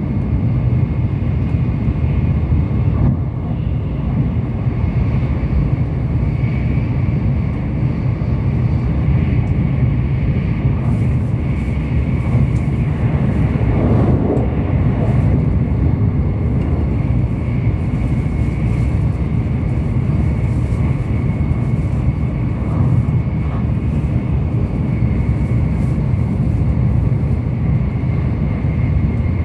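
Steady low rumble of a Tokaido Shinkansen train running at speed, heard from inside the car, with a faint steady high whine over it.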